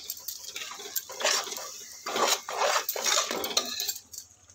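Metal spatula stirring and scraping a thick tomato and onion masala in a metal pressure cooker pot, in several separate strokes from about a second in.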